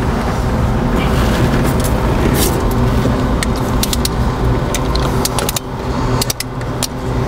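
Scattered sharp clicks of a long ratchet working the cylinder head bolts through their final 70-degree angle-torque pass, over a steady low rumble.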